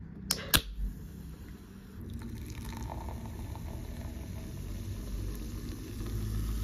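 An aluminium can of A&W sarsaparilla soda being opened: two sharp clicks of the ring-pull within the first second. Then, from about two seconds in, a steady pour of the carbonated soda into a glass, foaming as it fills.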